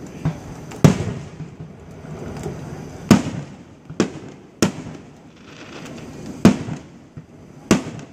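Aerial firework shells bursting overhead: about six sharp booms over eight seconds, each followed by an echo, with a few softer pops between.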